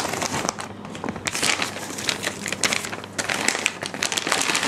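Shopping bags rustling and crinkling in irregular small crackles as a hand rummages in them and lifts out a wrapped bag of purchases.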